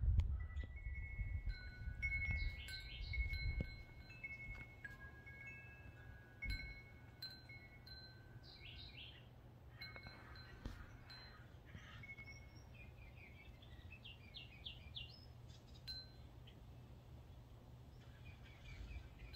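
Wind chime ringing, clear held notes at a few fixed pitches sounding again and again, with a small bird's quick chirps in a few short bursts. A low rumble sits under it for the first four seconds or so, then stops.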